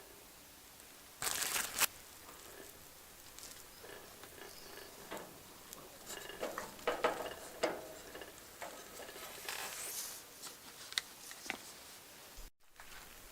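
Campfire cooking sounds: scattered crackles, taps and light clinks, with a loud hissing burst about a second in. The sound cuts out briefly near the end.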